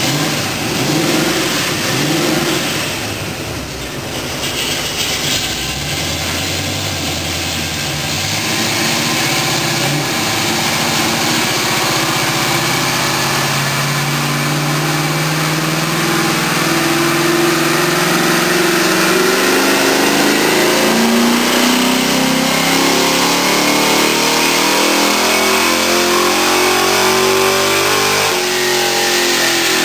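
Ford Maverick's 5.0 (302) V8 running on a chassis dyno during a dyno run. After a few seconds of lower running, the revs climb steadily for about twenty seconds, then fall away near the end.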